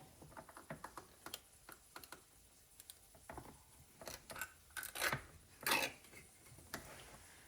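Faint, scattered clicks, taps and scrapes of a can of pineapple slices and kitchen bowls being handled, with a few louder scrapes around the middle.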